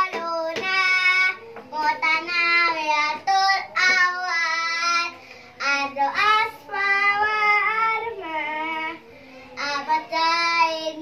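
A young girl singing a song solo and unaccompanied, in phrases of long held notes with short breaths between them.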